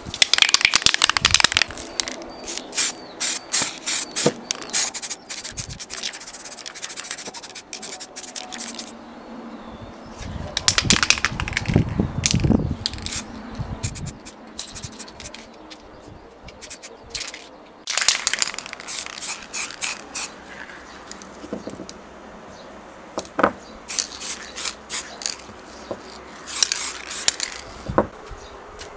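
Aerosol spray paint can hissing in repeated bursts, a few longer sprays among many short puffs, as metal parts are coated with primer and red paint.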